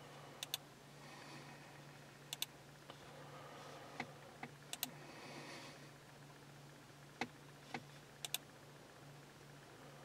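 Light taps on a Snap-on Verus scan tool's touchscreen while paging through its menus: a dozen or so short, sharp clicks, several in quick pairs, over a steady low hum.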